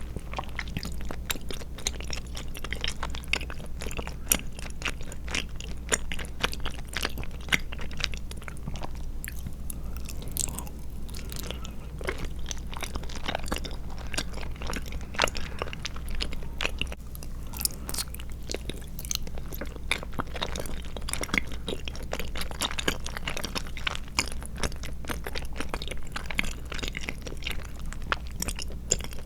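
Close-miked chewing of chewy tapioca pearls and soft milk jelly: dense, irregular wet mouth clicks and squishes, over a steady low hum.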